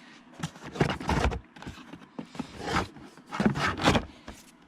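Plastic bags and packaging rustling and scraping in irregular bursts as parts are unpacked from a box.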